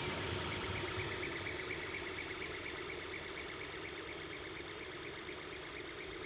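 Creality CR-8 3D printer running mid-print: its fans whir steadily under a faint, fast and regular pulsing whine.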